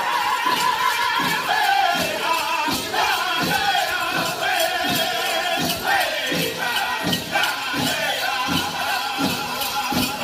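Powwow drum group singing a chicken dance song: several voices singing together in a high register over a steady, even beat on a shared drum.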